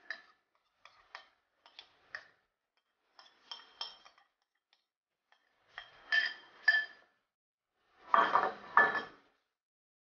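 Wooden spatula knocking and scraping against an aluminium saucepan while stirring sugar into cooking sago, the thin pot ringing briefly with each knock. The knocks come in pairs every second or so and grow louder, the last pair, near the end, the heaviest.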